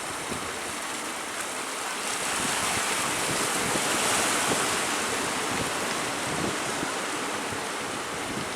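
Surf breaking and washing in, with strong wind on the microphone; the rush of water swells about two seconds in and eases off again after about five.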